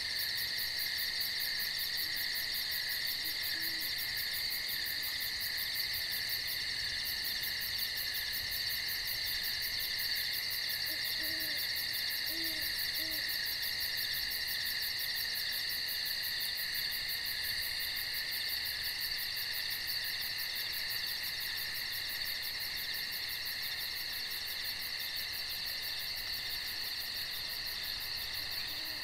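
Night insect chorus of crickets and katydids, a steady high buzzing with a fast pulsing trill above it. A few soft, low owl hoots come through it, a couple a few seconds in and a short series around the middle.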